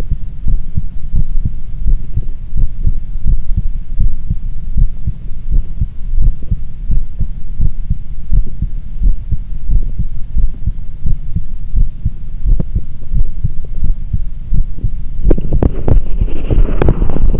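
Human heartbeat picked up close on the chest, a steady run of low thudding beats. About two seconds before the end a rustling noise rises over the beats.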